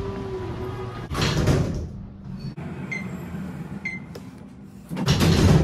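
Otis elevator doors sliding shut about a second in, then two short high beeps about a second apart as the car travels, and the doors sliding open again near the end.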